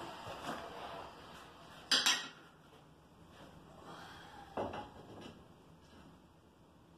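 Ceramic subway tiles clinking and knocking as they are handled and set onto a wall. There is one sharp, ringing clink about two seconds in and a softer knock a little before five seconds, with a few faint taps between.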